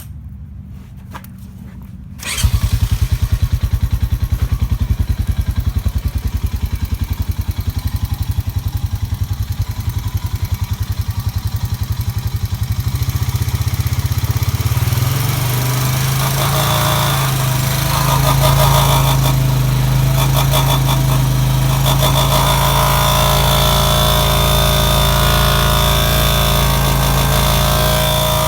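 Honda TRX500 ATV single-cylinder four-stroke engine starts about two seconds in, idles with an even pulse, then is brought up to a higher steady rpm. At that speed a steady whine rises over the engine note: the unidentified noise near the exhaust that only shows at a certain rpm.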